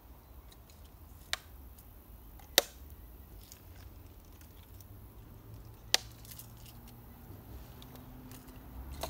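Three sharp clicks or knocks, about a second in, two and a half seconds in and six seconds in, the last two loudest, with a few fainter ticks between, over a low steady rumble.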